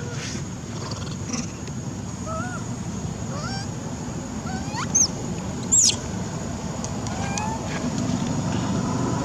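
Monkeys calling: scattered short squeaks and coos that arch or rise in pitch, with two loud high squeals about five and six seconds in, over a steady low background rumble.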